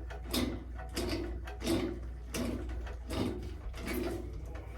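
Small threaded black iron pipe fittings being tightened with a wrench: a creaking, grinding stroke about every 0.7 s as the taped threads are turned in.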